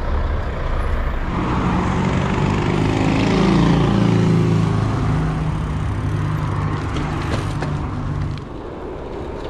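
A motor vehicle's engine passing close by, growing louder to a peak about three and a half seconds in and then fading, gone by about eight seconds. Steady low rushing noise lies underneath throughout.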